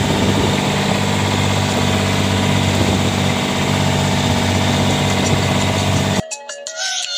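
Engine of a motorized outrigger passenger boat (bangka) running steadily underway, with a hiss of wind and rushing water. About six seconds in it cuts off abruptly to music.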